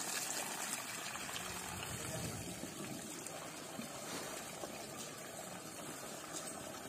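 Water running steadily during an elephant's bath, with faint voices in the background.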